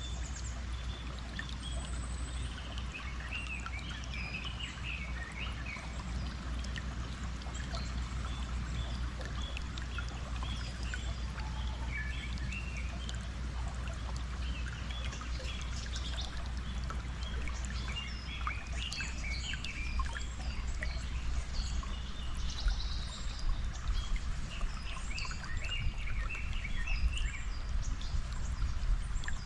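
Flowing stream water running steadily, with many birds chirping and calling over it, the calls growing busier in the second half.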